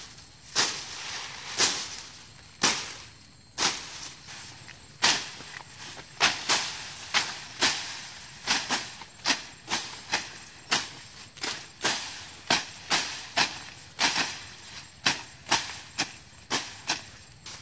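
Hooked machete blades slashing through tall grass stems, a sharp swishing chop repeated about once or twice a second, coming faster after about five seconds as a second cutter joins in.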